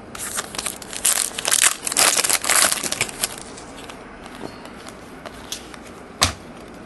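Trading-card pack wrapper crinkling and tearing for about three seconds as a pack is opened, then quieter ticks of the cards being handled, with one sharp click a little after six seconds in.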